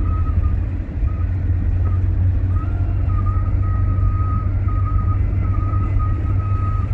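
Engine and road noise inside a moving car's cabin: a steady low rumble, with a faint high tone over it that steps up and down in pitch and breaks off now and then.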